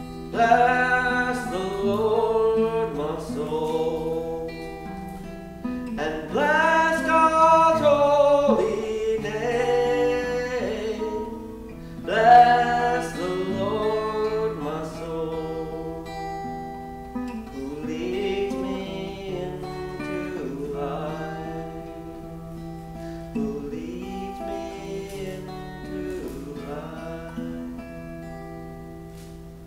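Acoustic guitar strummed as accompaniment to a voice singing a hymn in phrases a few seconds long, louder in the first half and softer toward the end.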